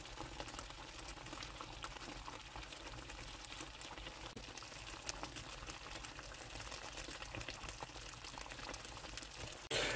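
Thick butter chicken gravy simmering in a pan: faint bubbling with many small pops.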